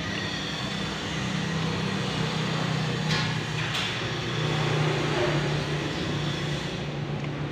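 Steady low mechanical hum over background noise, with two brief clicks about three seconds in.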